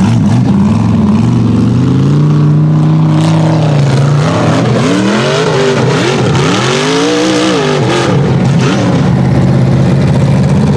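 Off-road race buggy's small-block V8 engine running loud. It holds a steady pitch at first, then about four seconds in is blipped up and down several times in quick succession, and settles back to a steadier run near the end.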